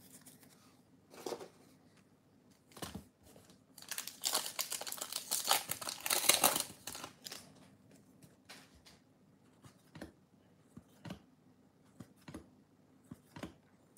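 Plastic wrapper of a Bowman baseball card pack torn open and crinkling, loudest about four to seven seconds in. Afterwards come scattered small clicks and rustles as the cards are handled.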